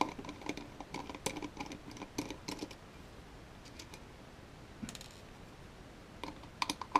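Small steel screws being turned out of a plastic housing with a precision screwdriver: a run of light clicks and ticks, then a quiet stretch, with the clicking starting again near the end.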